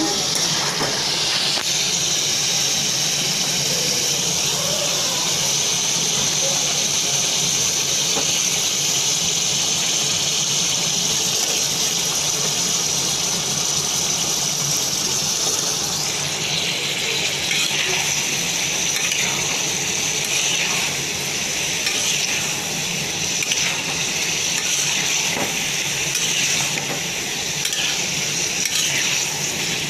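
Liver and spice masala sizzling steadily in a frying pan on the stove. In the second half, a metal spatula stirs added raw potato cubes through it, scraping against the pan.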